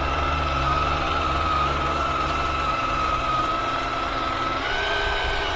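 RGT EX86190 RC 4x4 crawler's electric motor and gears whining steadily, the pitch stepping up a little near the end. Under it is a low rumble that drops away about halfway through.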